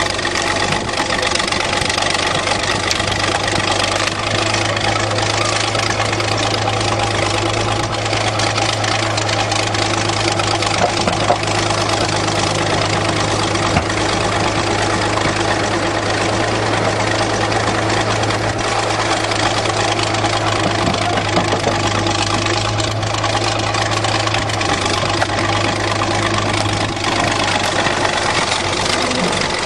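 Bulldozer's diesel engine running steadily at idle with a low, even hum.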